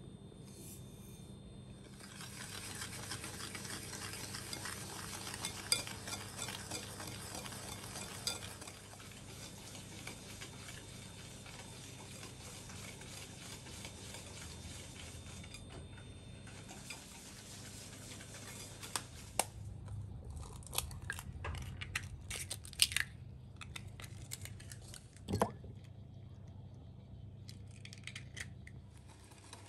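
Stirring in a glass mixing bowl: a steady stirring noise for over ten seconds, then a run of sharp clicks and taps of utensils and dishes.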